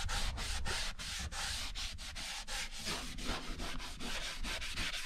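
Hand scrubbing of a wooden wall inside a boat's V-berth, quick back-and-forth rubbing strokes at about five a second, to clean marks off wood that has been damp.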